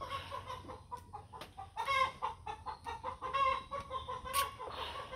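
Chicken clucking: a run of short, repeated calls, several a second, louder around the middle.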